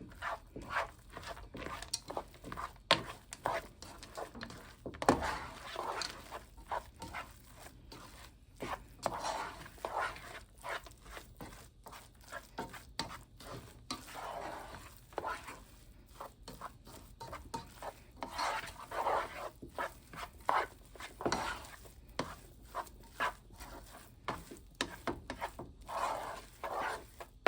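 Stove Top stuffing mix being stirred into butter and stock in a pan: an irregular run of scrapes and knocks against the pan, with patches of gritty rasping as the crumbs are worked in.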